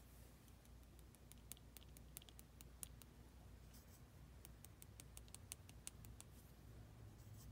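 Near silence with faint, irregular light ticks, several a second: a small watercolour brush tapping and dabbing on paper.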